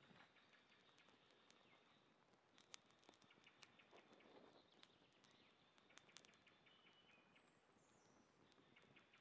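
Near silence: faint woodland ambience with a steady high insect hum, a few faint high chirps and scattered small clicks.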